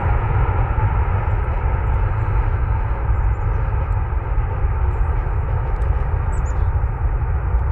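Boeing 737 MAX 8's CFM LEAP-1B jet engines running with a steady, deep roar as the airliner rolls out and slows on the runway after landing.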